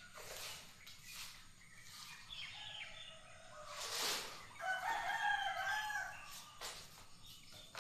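A drawn-out animal call with a clear pitch, loudest a little past halfway and lasting about a second and a half. A shorter call comes before it, over a background of recurring noise.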